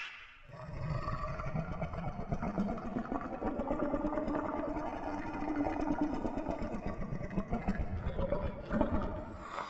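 Long, low, rough rumbling growl with a steady drone under it, a creature sound effect made for the Ningen. It starts just after a short gap and drops away shortly before another call begins.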